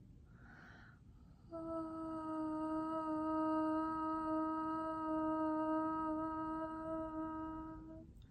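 A woman's voice sound toning: a breath in, then one long held note at a steady pitch, higher than the note before it, sung for about six seconds and released near the end.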